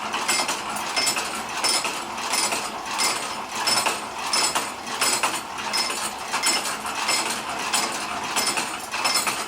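Restored Champion Forge No. 200 hand-cranked post drill boring through wood: its gears and feed mechanism clink and knock in a steady rhythm, about one to two clinks a second.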